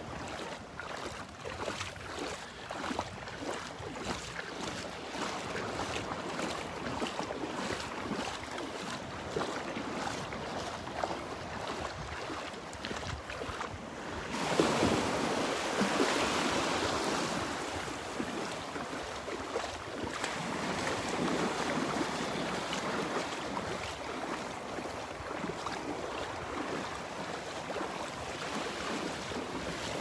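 Small Gulf of Mexico waves lapping and washing at the shoreline, with a light breeze on the microphone. A louder wash of surf comes about halfway through.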